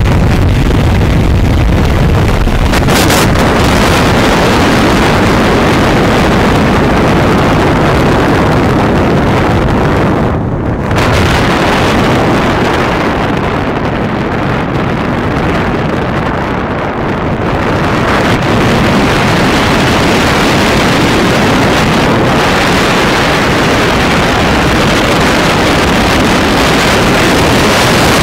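Bajaj Pulsar 180's single-cylinder engine running as the motorcycle is ridden, mixed with heavy wind rush on the microphone. The noise drops briefly about ten seconds in and eases again between about 13 and 17 seconds.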